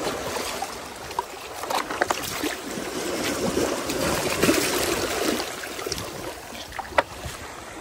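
Sea water washing and splashing among the boulders of a rocky shoreline, swelling briefly about halfway through, with a few sharp clicks, one near the end.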